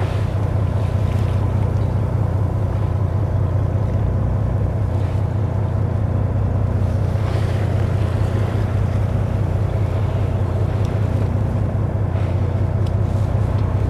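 Fishing boat's engine running steadily, a deep even hum, with wind and water noise over it.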